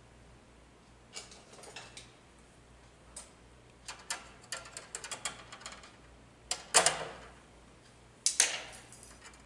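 Pliers clicking and snipping on a bare copper ground wire: scattered small metallic clicks, a quick cluster around the middle and two sharper clacks near the end.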